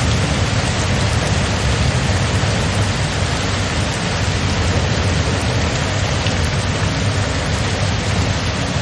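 Steady rain falling as an even, unbroken hiss, with a continuous low rumble underneath.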